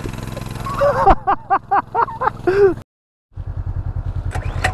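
Motorcycle engines running, with a man laughing in a quick run of short bursts over them for a second or two. The sound cuts out briefly near the middle, then an engine idles with an even pulse.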